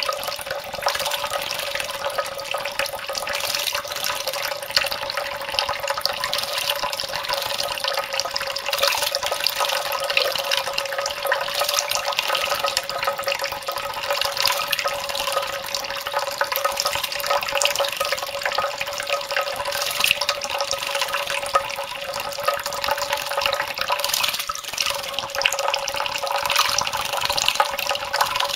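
A thin stream of tap water running steadily into a shallow bowl of water, with irregular splashing as a white Java sparrow bathes in it, dipping and fluttering its wings.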